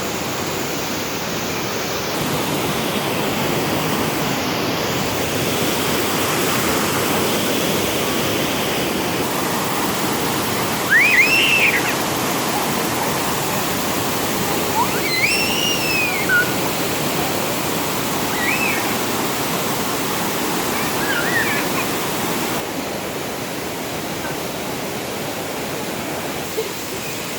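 Düden Waterfall: a steady rush of falling water. A few short, high, arching cries rise above it around the middle.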